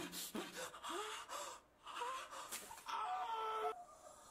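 A person's short wordless vocal sounds, several wavering gasps and moans in a row with brief gaps between them, over bits of rustling noise.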